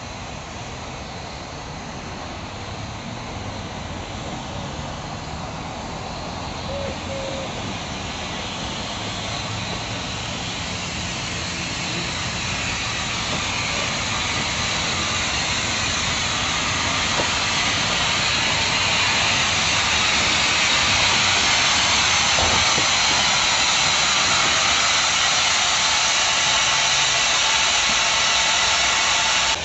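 A 15-inch gauge miniature railway train running, with a strong hiss, growing steadily louder over about twenty seconds as it draws closer, then holding steady.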